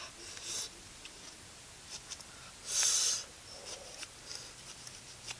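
A large knife shaving the peel off a green citrus fruit: rasping scrapes, a short one about half a second in and a longer, louder one near three seconds, with light clicks between.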